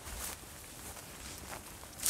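Faint footsteps on grass as a person walks.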